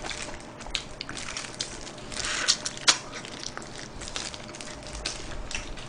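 Close-miked eating: sauce-coated fried chicken being picked up with a plastic-gloved hand, bitten and chewed, heard as a string of small wet clicks and squishes, busiest about two to three seconds in.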